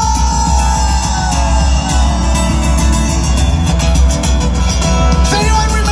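Live rock band playing loudly through a PA, heard from within the crowd: heavy bass and drums under electric guitar, with a held tone that slowly slides down in pitch over the first two seconds.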